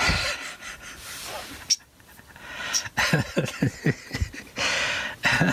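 Plastic toy robot being handled and set down on a rubber bench mat: a knock, then a few sharp clicks. Short falling low sounds follow, then a breathy hiss near the end.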